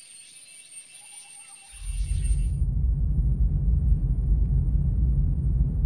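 Forest ambience with a steady high insect drone and a faint bird call. About two seconds in, a loud deep rumble swells up and the high sounds drop away, a film sound effect of hearing with the hands pressed over the ears.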